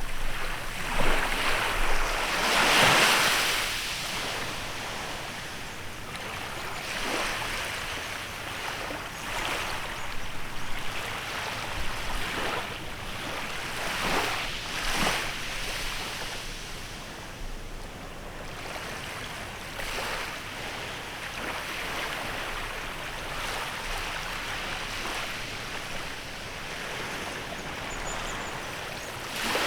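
Small waves breaking and washing up a beach in a bay, one after another every few seconds, the loudest wash about three seconds in.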